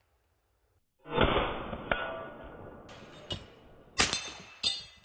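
Shots from a BinTac T9 semi-auto .357/9mm PCP air pistol and rounds striking metal targets. After about a second of near silence there is a loud impact with a metallic ring that fades over a couple of seconds, then several sharp cracks near the end.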